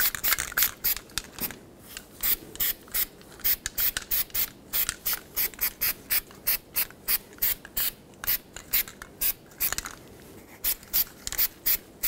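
Aerosol anti-seize spray can hissing in short, quick bursts, about three a second, with a short break near the end.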